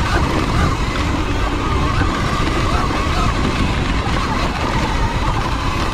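Sur-Ron electric dirt bike ridden fast along a dirt trail: a steady rush of riding noise from tyres, chain and wind, with a faint whine that wavers in pitch as the speed changes.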